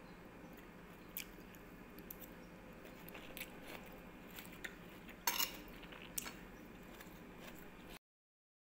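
Metal fork clinking and scraping against a ceramic bowl while picking through a salad: scattered light clicks, the loudest a short clatter about five seconds in.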